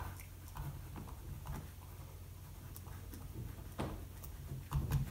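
A pen writing by hand: faint, short, irregular strokes of the tip as a word is written out, over a low steady hum.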